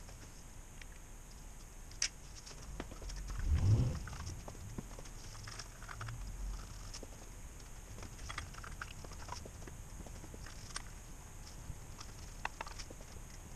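Scattered light clinks and taps of hand tools working on a bare Isuzu 4BD2T diesel engine block, with a sharp click about two seconds in and a brief low thump a little later.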